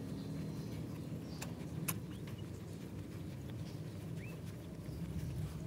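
Faint wet clicks and smacks of a mother cat licking and chewing at her newborn kitten's placenta, over a steady low rumble, with a tiny high squeak about four seconds in.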